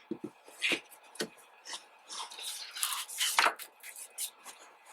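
Handling a photo book and its cardboard packaging: scattered light taps and clicks with brief rustles and scrapes of paper and card, the longest scrape about three seconds in.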